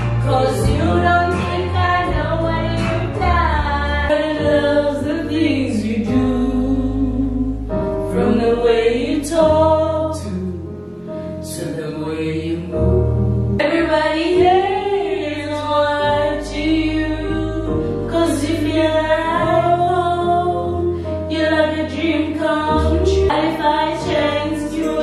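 Karaoke: a woman sings into a handheld microphone over a song's backing track, with other voices singing along.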